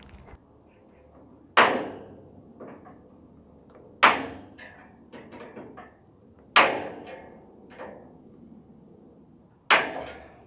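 Four sharp hammer strikes, about two and a half seconds apart, fastening welded wire mesh to a wooden frame; each blow rings briefly, with small taps and rattles of the mesh between them.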